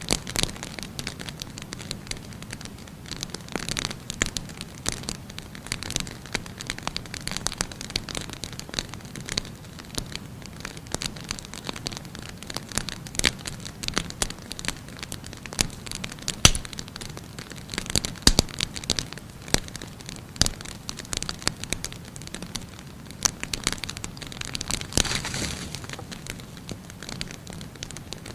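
Firewood fire burning: a steady hiss with irregular sharp crackles and pops, one louder pop about halfway through.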